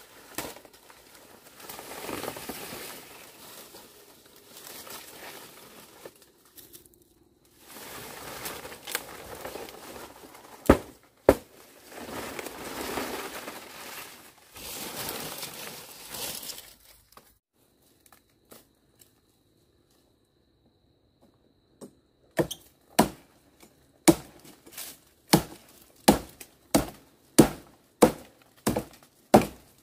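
Rustling, crinkling handling noise with two sharp knocks partway through. After a short lull comes a run of about a dozen sharp knocks, roughly two a second.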